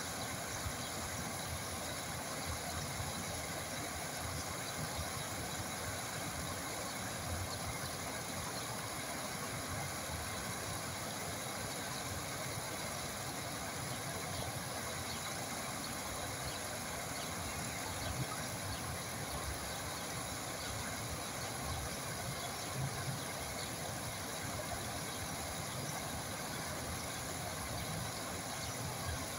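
Flowing water making a steady, even rushing sound.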